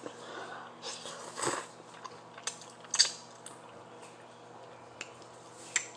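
Eating sounds of a noodle mukbang: utensils clicking against the dish and noodles being chewed, a handful of short scattered sounds over a faint steady hum.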